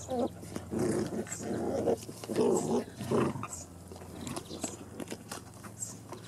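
Nine-week-old Bolonka and Schapendoes puppies growling as they play-fight, about five short, rough growls in the first three and a half seconds, then quieter with small clicks and scuffles.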